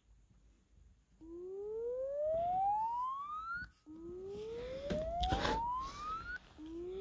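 A Samsung Galaxy A Quantum phone playing its built-in hardware-test tone, probably the earpiece (receiver) test: a clean tone rising steadily in pitch over about two and a half seconds, starting about a second in and repeating about four seconds in and again near the end. A burst of rubbing from handling the phone comes around five seconds in.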